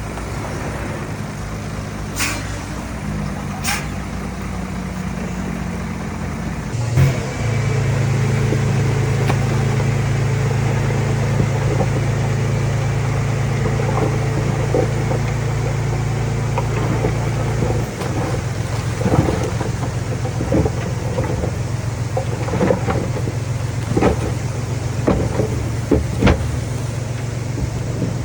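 Heavy diesel earthmoving machinery running, its engine revving up and holding a higher, louder drone from about seven seconds in. Sharp metallic clanks come now and then, most of them in the last third.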